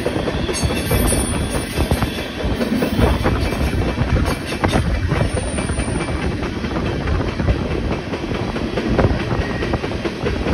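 Freight train of tank cars rolling along, heard from on board: a steady loud rumble of steel wheels on rail, with scattered clacks over the rail joints.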